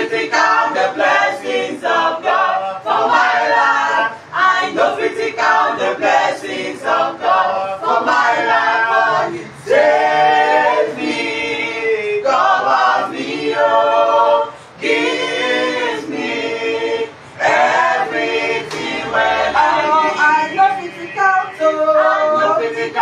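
A small group of men and women singing a worship song together a cappella, with hand clapping.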